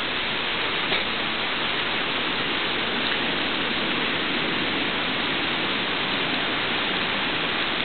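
Heavy thunderstorm rain pouring down steadily, a continuous hiss of rain on wet pavement and lawn.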